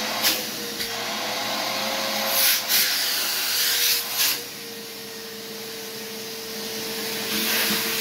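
DeWalt 10-gallon wet-dry shop vacuum running: a steady motor whine over the rush of air through the hose, with a few brief louder surges of suction as the narrow nozzle is worked over a bandsaw.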